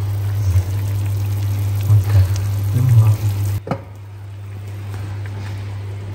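Pots of food cooking on a stovetop, bubbling and sizzling under a steady low hum. A sharp clink comes about three and a half seconds in, and after it the sound is quieter.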